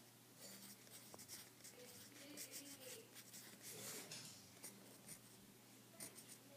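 Faint pencil scratching on paper, writing small letters in runs of short strokes.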